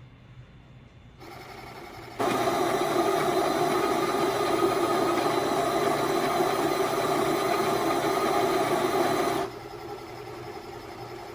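SPINN coffee maker running its first brew cycle: a motor starts about a second in, a much louder steady mechanical running starts about two seconds in and lasts about seven seconds, then drops back to a quieter steady hum.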